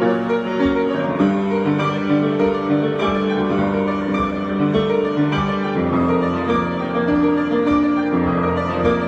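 Piano improvisation: sustained chords and melody notes, with a low bass line that grows stronger after about six seconds.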